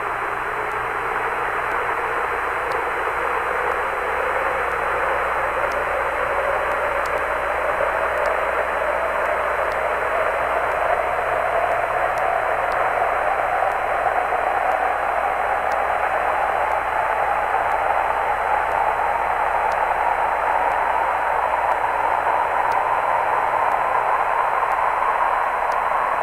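Radio-link hiss from the Apollo 16 lunar module's open microphone, with a hissing tone that rises slowly and steadily in pitch throughout. The narrator is 99% sure this is the sound of the ascent engine firing as the ascent stage climbs away from the Moon.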